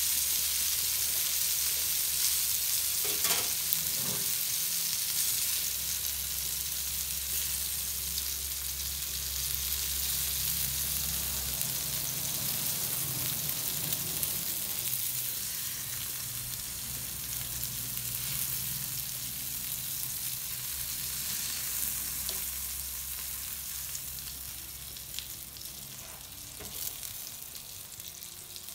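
Köfte wrapped in caul fat sizzling and spitting on a hot griddle plate, a steady frying hiss that grows somewhat quieter near the end. A few light clicks of metal tongs come as the patties are lifted off.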